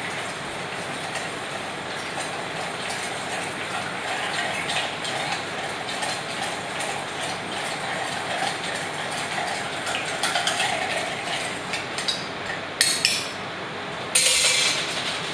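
Bar spoon stirring a cocktail in a stainless steel mixing pitcher: a steady rattling clink of metal. Near the end come a sharp click and then a brief louder clatter.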